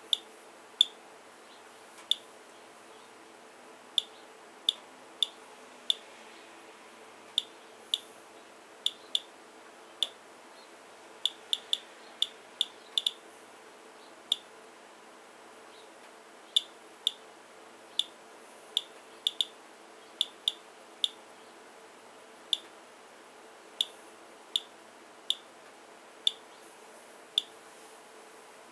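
Geiger counter clicking at random, uneven intervals, about one to two short high chirps a second, each a single detected radiation count from a rain sample being measured. A faint steady hum runs underneath.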